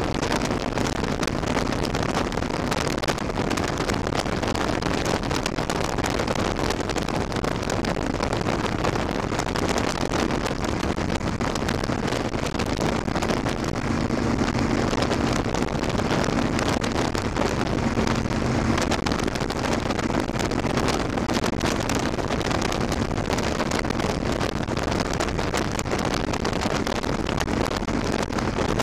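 Cruiser motorcycle riding at a steady highway speed of about 55 mph, wind rushing over the microphone with the engine's steady low drone underneath.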